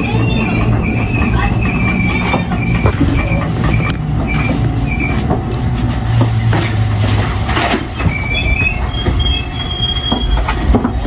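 JR commuter train running, heard from inside the front car: a steady low rumble of wheels on track with occasional clicks. Two runs of short, repeated high-pitched tones come and go, in the first half and again near the end.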